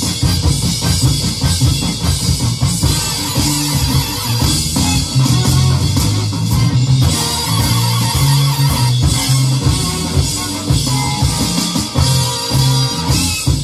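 Roland electronic drum kit played along with a recorded band track, with drums and band sounding together as one full, loud mix.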